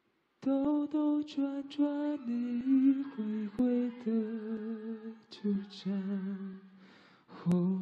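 A man singing solo into a handheld microphone: held notes that step between pitches, some with a wavering vibrato, with a short break near the end. His voice is sung through a heavy cold.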